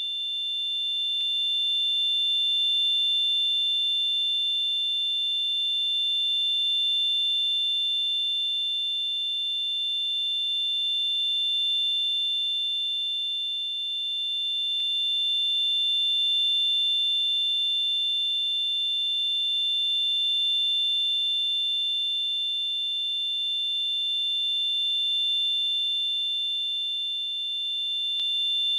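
Tinnitus sound effect: a steady, high-pitched ringing of two close tones over a faint hiss, slowly swelling and fading in loudness every few seconds.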